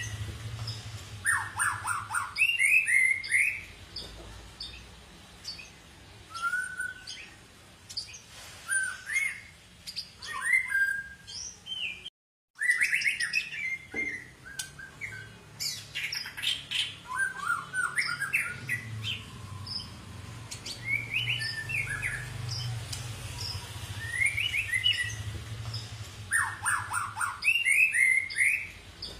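White-rumped shama (murai batu, long-tailed Medan type) singing a varied song of loud whistled phrases, sliding notes and quick chirp runs, with a steady faint low hum beneath. The sound cuts out completely for about half a second near the middle.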